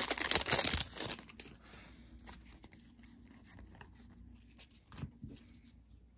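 A foil trading-card pack is torn open, with loud crinkling and tearing that dies down about a second in. After that come a few faint clicks as the stack of cards is handled.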